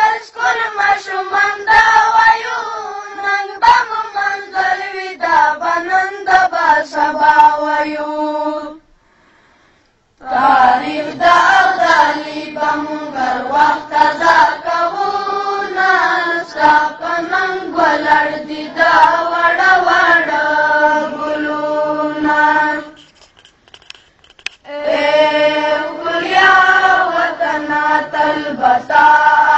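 Pashto milli naghma, a patriotic song, sung in unison with long held notes that bend in pitch. The singing breaks off twice for a second or two, about nine and twenty-three seconds in.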